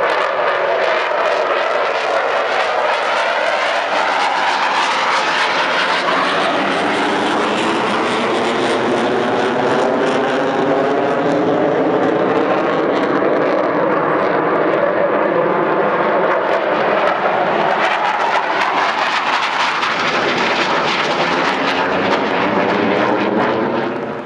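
Military fighter jet taking off, its jet engine running loud and steady, with a sweeping, phasing quality as it moves past.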